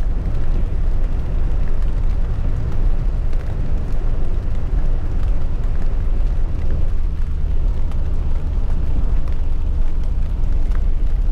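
Small camper van driving on a wet highway in the rain, heard from inside the cab: a steady deep rumble of engine and tyres on the wet road under the hiss of rain and spray.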